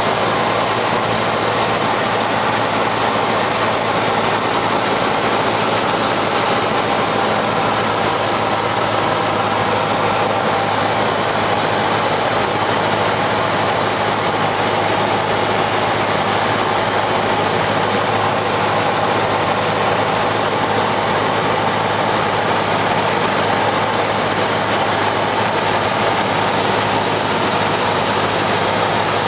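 Cessna 172's piston engine and propeller running steadily, heard from inside the cockpit, with an unchanging drone and no change in power.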